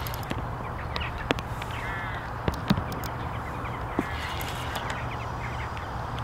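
Scattered short, harsh bird calls, with a steady low wind rumble on the microphone underneath.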